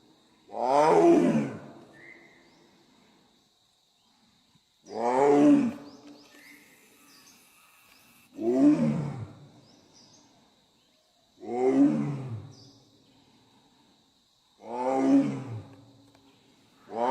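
Big cat roaring: a series of loud, deep, pitched roars about a second long, each falling away at the end, repeated every three to four seconds, six in all. A faint steady high whine runs beneath.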